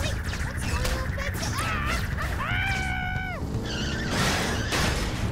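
Cartoon action score layered with sound effects. A held pitched tone rises in, stays level and drops away about halfway through, and a wide noisy whoosh or crash comes about a second before the end.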